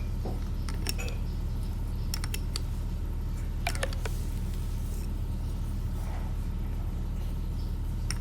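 A few scattered small metallic clicks and clinks of tools and alternator parts being handled while a terminal is fastened, over a steady low hum.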